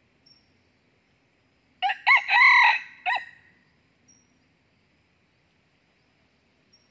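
Red junglefowl rooster crowing once, about two seconds in: a short crow of four notes lasting about a second and a half, with the longest note in the middle and a clipped final note.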